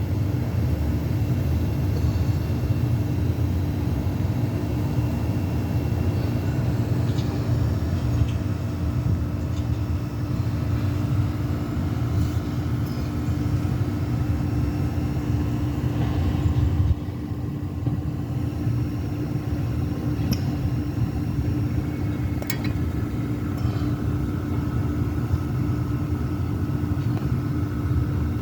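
5.9 Cummins 12-valve inline-six diesel idling steadily, an engine with an exhaust leak at the cylinder head. It gets a little quieter about seventeen seconds in.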